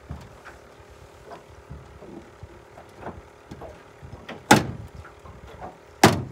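Scattered light knocks and thumps in a small aluminum boat, with two sharp, loud knocks about four and a half and six seconds in.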